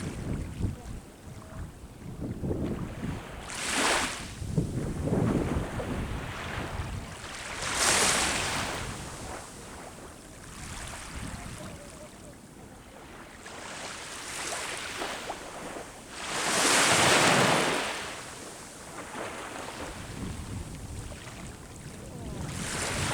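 Sea waves breaking and washing up the shore in slow surges every few seconds, one stronger wash about two-thirds of the way through. Under it is a low rumble of wind on the microphone.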